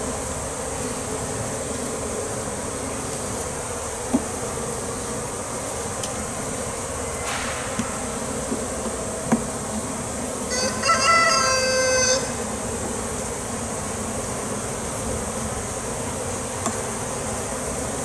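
Honeybees buzzing steadily over an open hive of a colony that has lost its queen. About eleven seconds in a rooster crows once, and a few sharp clicks sound from the hive tool against the wooden frames.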